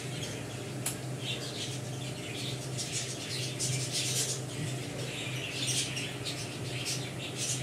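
Birds chirping in the background, with short high calls repeating every second or so, over a steady low hum.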